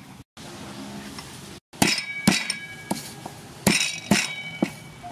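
Steel cleaver striking a wooden chopping board about half a dozen times at an uneven pace, each blow with a short metallic ring, starting about two seconds in.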